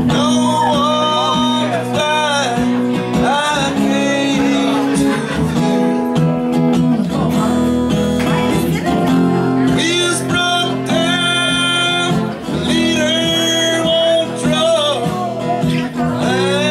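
Acoustic guitar played with a man singing into the microphone: a live acoustic song in progress.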